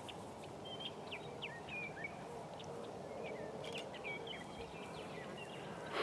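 Faint outdoor ambience with small birds chirping and twittering in short scattered calls.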